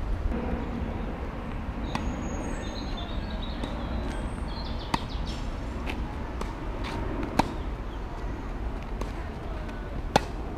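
Tennis rally: four sharp racket-on-ball strikes about two and a half to three seconds apart, the last two louder as the near player hits, over a steady low outdoor background rumble.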